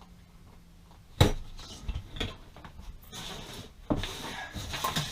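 Handling noises of wire rope and a small metal cable stop being fitted onto it: a sharp knock about a second in, then irregular clicks and clattering.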